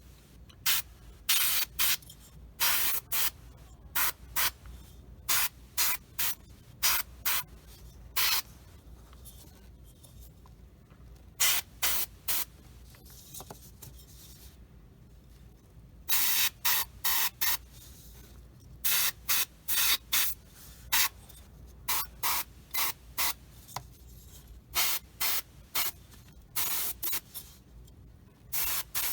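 Airbrush spraying paint in short, repeated bursts of hiss as the trigger is pulled and released, most lasting a fraction of a second, with one longer burst of about a second and a half around the middle.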